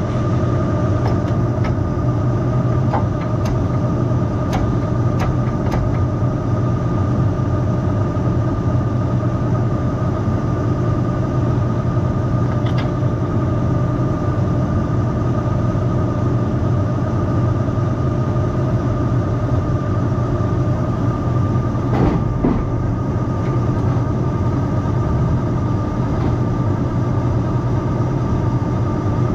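John Deere 8130 tractor's diesel engine running steadily, with an even hum and a steady high whine. A few light clicks come in the first several seconds, and a single knock about two-thirds of the way through.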